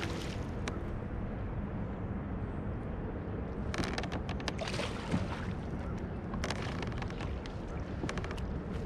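Steady wind rumble on the microphone, with several short bursts of splashing from about four seconds in as a small bass hooked on a topwater lure is reeled toward the kayak.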